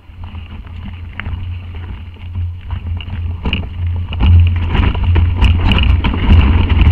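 Mountain bike rolling down a loose dirt trail, heard through a bike-mounted camera: a low rumble of wind and tyres on loose ground, with rattles and clacks of the bike over rough ground. It gets much louder about halfway through as the bike speeds up.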